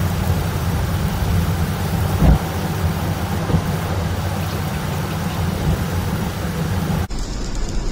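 Heavy rain and wet-road noise from inside a moving car, over a deep steady rumble, with a brief low thump about two seconds in. The sound changes abruptly to a thinner hiss near the end.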